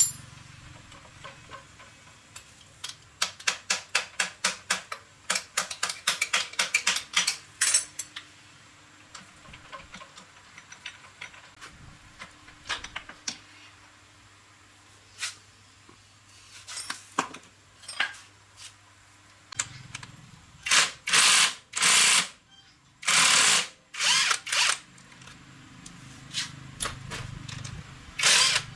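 Workshop tool sounds on an old Yamaha 115cc motorbike: a run of quick clicks of a few seconds, scattered knocks, then several short power-tool bursts near the end.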